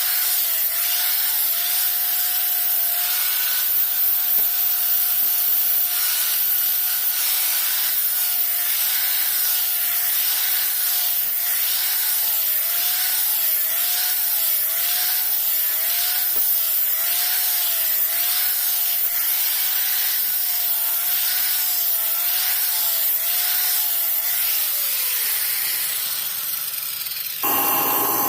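Electric grinding tool working the steel of a machete blade: a steady grinding hiss over a motor whine whose pitch dips again and again as the blade is pressed on. Near the end the motor is switched off and winds down, then there is an abrupt change to a different steady hum.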